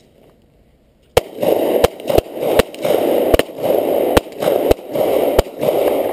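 Semi-automatic pistol gunfire: about eight sharp shots at uneven spacing, starting about a second in and running to the end. A loud rushing noise fills the gaps between the shots.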